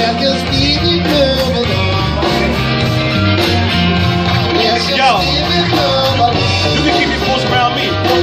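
Rock-tinged hip-hop music with a steady bass line and electric guitar, with some singing over it.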